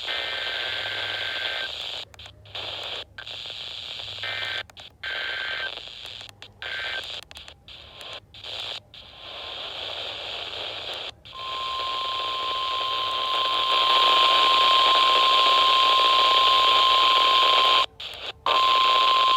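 NOAA Weather Radio alert tones heard through a receiver over constant static. It opens with several short bursts of the warbling digital alert header (SAME data), which switches receivers on. About eleven seconds in, the steady single-pitch 1050 Hz warning alarm tone starts and holds at full level, broken once briefly near the end.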